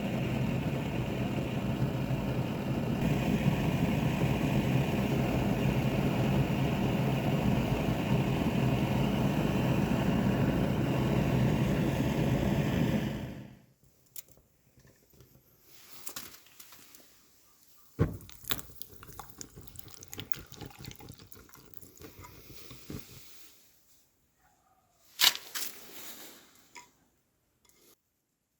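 A machine running steadily with a low hum, cutting off about halfway through, then scattered knocks and clinks of metal being handled.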